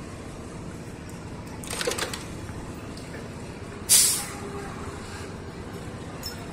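Steady low vehicle rumble, with a short loud hiss about four seconds in that dies away within half a second.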